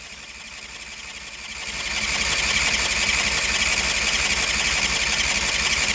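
Electric starter cranking a cold 20 hp Briggs & Stratton V-twin that does not catch. A steady whine runs over rapid, even pulses, building over the first two seconds and then holding steady. The engine is turning over without firing, which the owner puts down to a spark problem.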